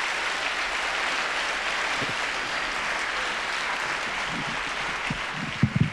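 Audience applauding steadily, easing slightly near the end, with a few short low thumps about five and a half seconds in.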